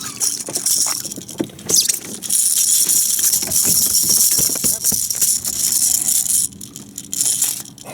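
Rattling and clattering on a kayak as a just-caught speckled trout is handled on a fish measuring board, with a stretch of hissy splashing or rustling through the middle.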